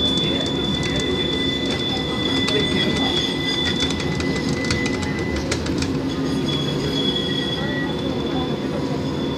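Tram rolling along with a steady low rumble and scattered clicks from the running gear, its wheels squealing on the rails in long, high, steady tones. The squeal drops out about halfway through and comes back briefly near the end.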